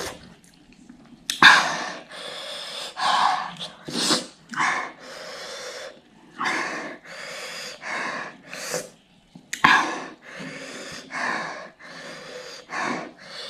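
A person breathing hard through the mouth in a string of breathy puffs and gasps, from the burn of spicy ghost pepper noodles. Two sharp, louder bursts, like sneezes or snorts, come about a second and a half in and near ten seconds.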